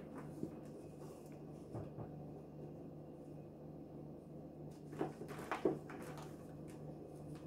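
Hand crumbling and crushing dried, reformed baking-soda chunks into powder in a plastic tub. Soft crunches come scattered at first, then a close cluster about five to six seconds in, over a faint steady hum.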